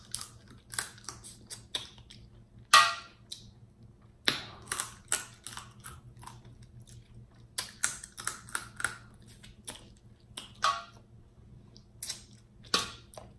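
Close-miked mouth sounds of eating snow crab: lips smacking and sucking as meat and sauce are licked off the fingers. It comes as an irregular run of wet clicks with a few longer slurps.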